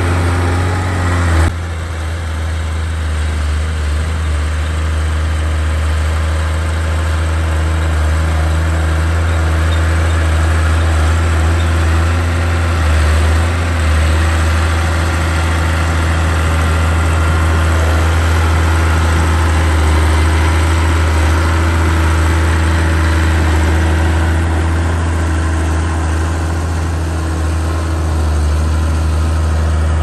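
Diesel engine of a small crawler bulldozer running steadily with a low, even hum while it pushes soil. The sound shifts abruptly about a second and a half in.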